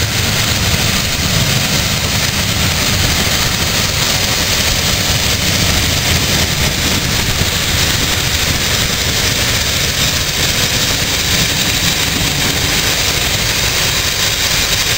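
A train of passenger coaches running past at speed, with a steady, loud noise of wheels on the rails.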